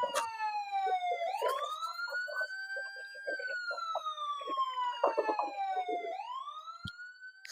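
A siren wailing in slow cycles: the pitch climbs over about two seconds, falls slowly for about three, and starts to climb again near the end. Faint small taps sound underneath.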